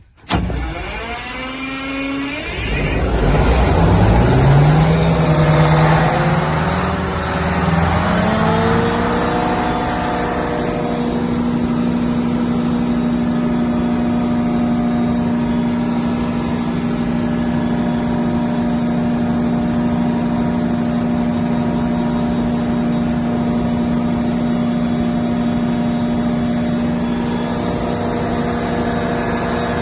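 Large Detroit Diesel engine of a 1600 kVA generator set firing up and running up in speed, its pitch rising over several seconds. It then settles into steady running at governed speed.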